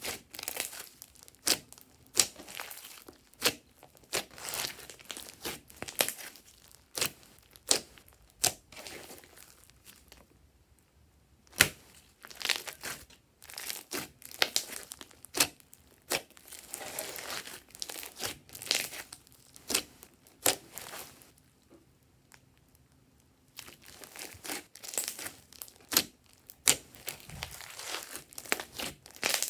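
Glossy slime being squished, folded and stretched by hand: irregular sticky clicks and pops in clusters, with two short pauses, about ten seconds in and again past twenty seconds.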